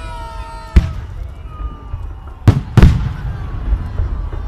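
Aerial firework shells bursting in a fireworks salute: three sharp bangs, one about a second in and two in quick succession about two and a half seconds in, over a constant low rumble.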